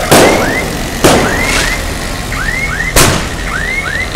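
Fireworks exploding: three loud bangs, about a second in, then two seconds later, each fading away. Between them, short high whistles that rise and fall come over and over, mostly in pairs.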